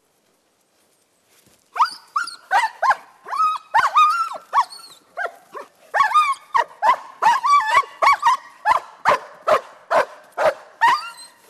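Young German shepherd on a leash barking excitedly at a helper provoking it in protection training. The barking starts a couple of seconds in as a dense run of barks and rising and falling yelps, then settles into steady barks about two or three a second.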